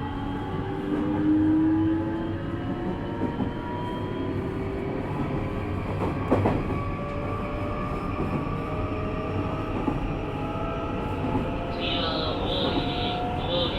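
Nishitetsu 3000 series electric train heard from inside a motor car while under way, with the running rumble and the traction motors' whine slowly rising in pitch as it gathers speed. There is a single knock about six seconds in, and a high, choppy squeal joins near the end.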